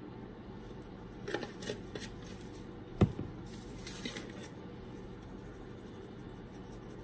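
Plastic spice shakers handled by gloved hands over a wooden cutting board: short rattles and rustles about a second in and again near four seconds, and one sharp knock about three seconds in as a jar is set down on the board.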